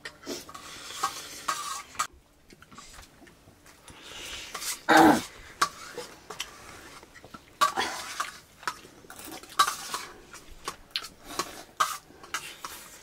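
Metal spoon scraping and tapping on a stainless steel plate as rice and curry are scooped up and eaten, in irregular clicks and scrapes, with one louder burst about five seconds in.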